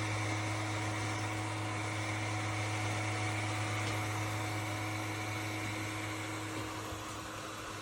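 Russell Hobbs RHPH7001 plug-in ceramic fan heater running: a steady rush of air from its fan over a low, even hum, growing slightly quieter toward the end.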